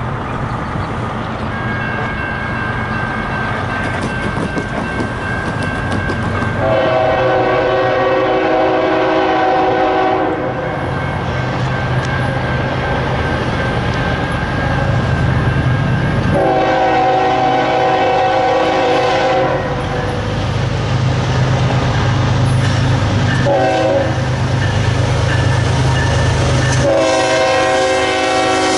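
Approaching NS GE ES44AC diesel locomotive sounding its horn in the grade-crossing pattern: long, long, short, long. The last long blast runs on as the locomotive reaches the camera. Under the horn, the low rumble of the freight's engines grows steadily louder.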